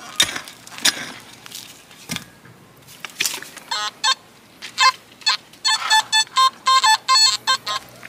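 A hand garden fork knocks and scrapes in the soil a few times, then a metal detector sounds a rapid run of short pitched beeps as its coil sweeps over the dug hole, signalling a metal target in it.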